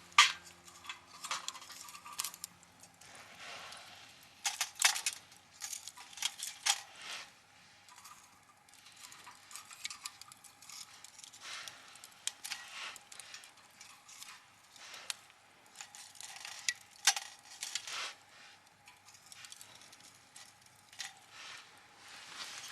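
Irregular clinks, clatters and knocks of small hard objects being handled, some louder, sharper strikes about five, seven, twelve and seventeen seconds in, over a faint steady hum.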